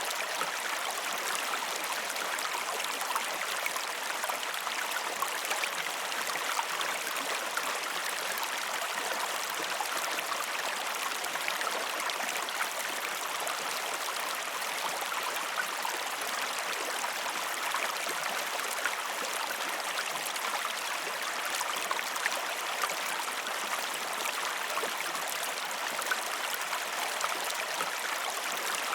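A river flowing steadily over rocks, a continuous rushing babble of water with small splashes and no breaks.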